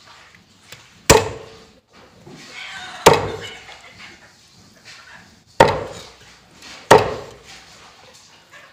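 Cleaver chopping bone-in cooked chicken on a thick wooden chopping block: four heavy chops, irregularly spaced a second or more apart, each fading quickly.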